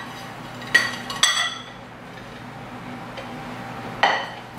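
A white ceramic bowl clinking against a ceramic plate as the bowl is turned upside down onto it: two sharp clinks about a second in and another near the end.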